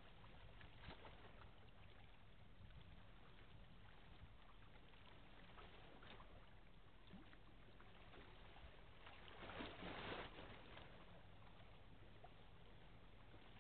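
Near silence: faint outdoor background hiss with a low steady hum, and a brief swell of noise about ten seconds in.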